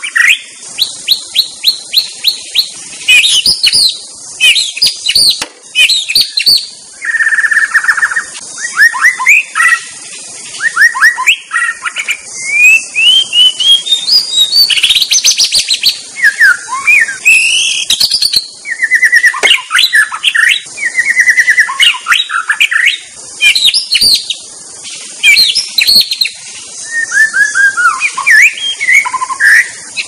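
White-rumped shama (murai batu) singing loudly. Its song is a varied run of phrases: rapid strings of repeated notes, clear whistles, and slurs that rise and fall, each phrase followed by a short gap.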